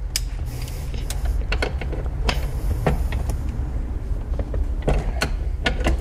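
Seat-belt anchor bolt being forced loose with a Torx 50 bit on a breaker bar: irregular creaks and sharp clicks as the thread-locked bolt skips and jerks instead of turning smoothly.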